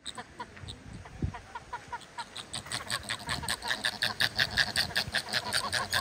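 A flock of flamingos honking. Short calls come sparsely at first, then about two seconds in they thicken into a rapid, continuous chatter from many birds.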